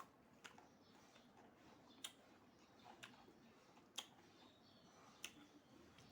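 Quiet eating sounds: soft, sharp mouth clicks and smacks while chewing, about one a second.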